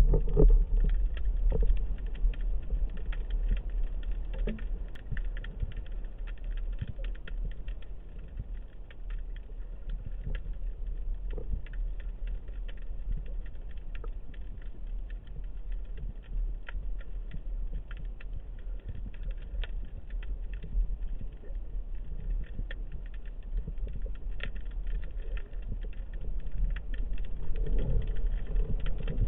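Underwater ambience in a rough, surging sea: a dense, steady crackle of tiny clicks over a low rumble, growing louder near the end.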